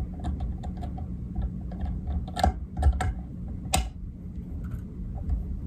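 Light scattered clicks and taps from hands working a rotary fly-tying vise while chenille is wrapped up the hook shank, with a few sharper clicks in the middle, over a steady low hum.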